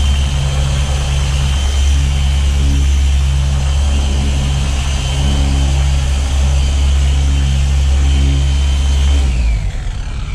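Handheld electric polisher running with a steady low hum and a thin high whine, the hum wavering every second or so as the pad works the panel. About nine seconds in it is switched off and the whine falls away as the motor winds down.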